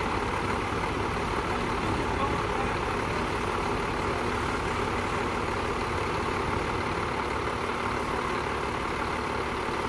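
Caterpillar wheel loaders' diesel engines idling steadily.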